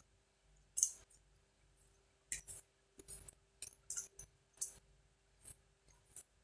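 Tarot cards being shuffled and handled: a run of short, crisp clicks and snaps at irregular spacing, about two a second.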